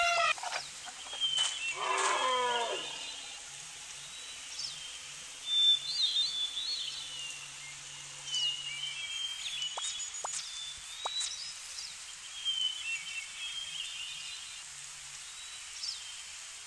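One moo-like animal call that falls in pitch about two seconds in, then birds chirping on and off over a faint low pulse that repeats about twice a second.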